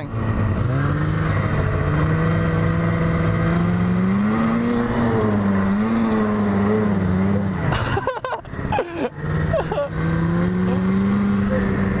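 Yamaha snowmobile engine running under throttle through deep snow, over a steady rush of wind and snow spray. Its pitch climbs about four seconds in and settles back. About eight seconds in the engine note drops away and breaks up briefly, then picks up again and runs on.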